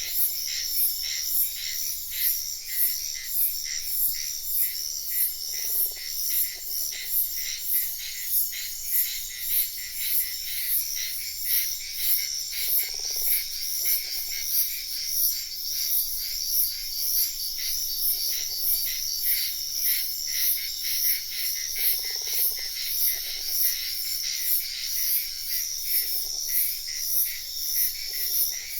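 Night-time forest chorus: insects chirp steadily in a high, evenly pulsing rhythm of about one and a half beats a second, while frogs give short, low, trilled croaks every few seconds, often two in quick succession.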